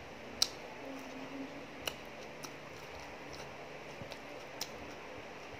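Eating utensils clinking against a plate: one sharp clink about half a second in, then about half a dozen fainter clicks at irregular intervals over a steady low hiss.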